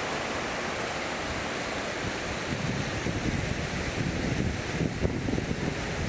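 Steady rush of water at a waterfall. From about two and a half seconds in, wind buffets the microphone in uneven low gusts.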